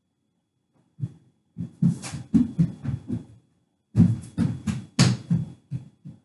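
A small child's footsteps thumping across the floor in quick, uneven steps, about three or four a second, in two runs with a short pause about three seconds in.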